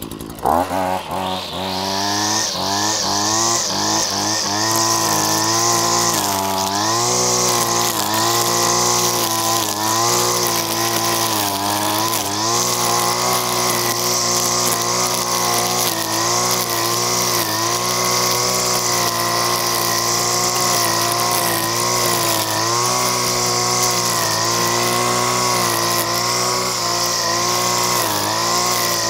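Petrol line trimmer's engine revving up in the first couple of seconds, then running at high revs. Its pitch dips and recovers again and again as the line cuts through nettles and grass.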